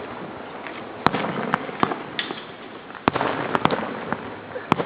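Aerial fireworks shells bursting: a series of sharp bangs, a cluster of them about a second in, another about three seconds in and one more near the end, with crackling in between.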